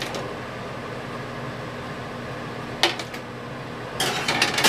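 Steady electrical hum of a running microwave oven. A sharp knock comes about three seconds in, and a short clatter of kitchenware near the end.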